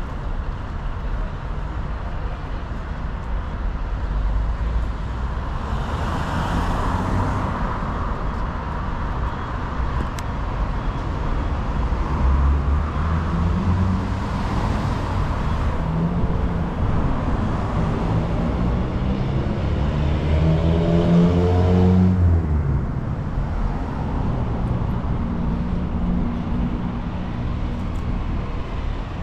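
Street traffic: cars passing on the road beside the sidewalk, a steady rumble with tyre hiss, and one engine rising in pitch as it speeds up about twenty seconds in.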